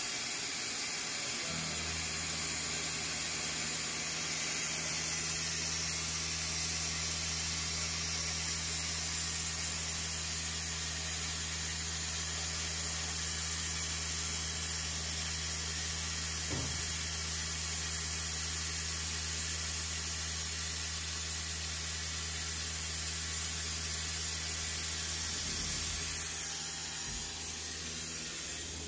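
Haas VF-0E CNC vertical mill running: a steady machine hum comes in about a second and a half in and holds, under a constant hiss.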